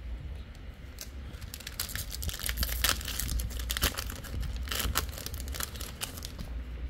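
A Digimon card booster pack's wrapper crinkling and tearing open, a dense run of crackles from about a second in until shortly before the end.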